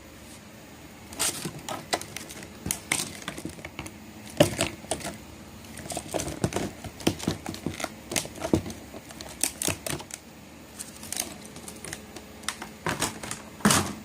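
Torch packaging being opened and handled: a run of irregular clicks and rustles, the loudest just before the end.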